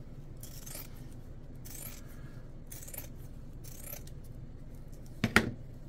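Steel shears snipping through woven carbon fiber cloth, a string of soft crisp cuts, with one louder metallic click of the blades near the end.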